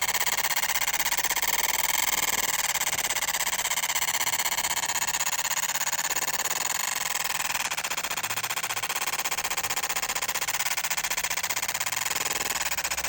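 Laser machine working on a printed circuit board: a steady, fast pulsing buzz that holds at an even level throughout.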